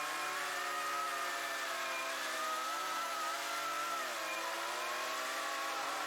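Chainsaw running at high speed, its pitch dipping briefly twice as the chain loads in a cut.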